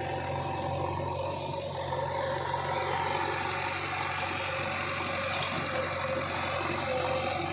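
JCB 3DX backhoe loader's diesel engine running steadily, with a steady low hum and a harsher mid-range noise that grows about two seconds in.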